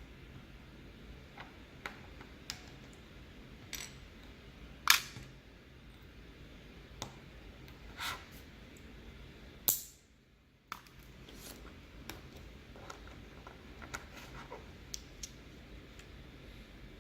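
Sharp plastic clicks and snaps of Halo True mechanical keyboard switches being opened in a switch opener, their housing halves popping apart and being handled. The loudest snaps come about five seconds in and just before ten seconds, with smaller clicks scattered between.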